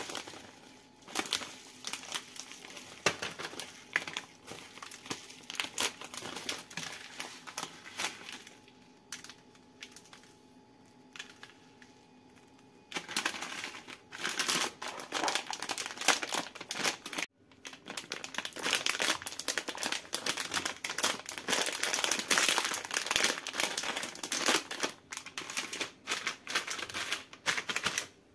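Plastic candy bags crinkling and rustling as hands handle them and pick jelly candies out, in dense bursts with a quieter lull about a third of the way through.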